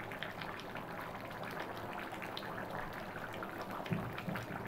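Chicken and bottle gourd curry boiling hard in a pan: a steady bubbling with many small pops. A brief low thump about four seconds in.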